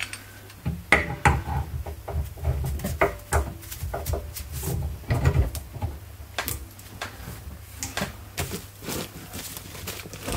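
Steel tie rod end puller being handled and fitted onto a wheel hub: irregular metallic clicks, knocks and rattles of the tool against the hub and stud, with heavier bumps in the first half.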